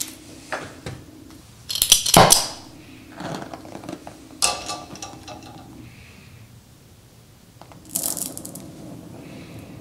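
Oxy-acetylene welding torch being lit with a flint striker: a few scraping clicks, then the loudest burst about two seconds in as the acetylene catches. Two more short bursts of clatter and hiss come about four and a half and eight seconds in, as the torch valves are set to a small flame.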